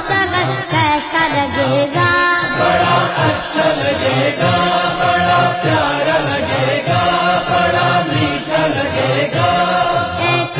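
A naat, an Urdu devotional song, chanted by voices in unison over a steady, regular beat.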